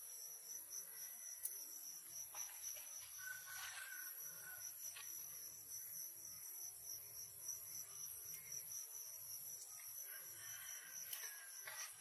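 Insects chirping in the grass: a steady, high-pitched, rapidly pulsing trill with a fainter, even higher band above it, and a few faint taps and rustles.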